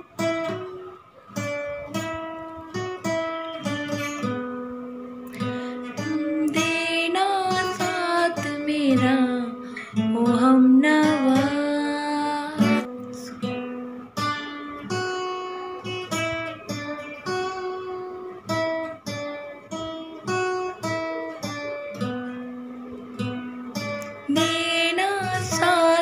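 Cutaway acoustic guitar played fingerstyle: a melody picked out note by note, with some longer, wavering held notes in the middle and again near the end.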